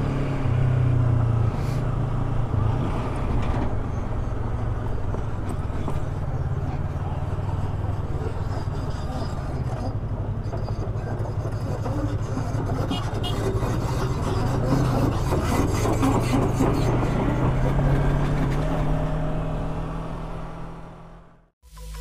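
Yamaha R3 sport motorcycle's engine running steadily while it is ridden at low speed on a rough road, with wind and road noise on the rider's camera mic. The sound fades out about a second before the end.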